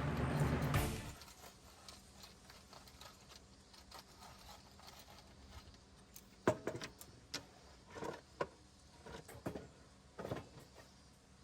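Background music ending about a second in, then a quiet stretch with scattered light clicks and clinks, about seven of them in the second half.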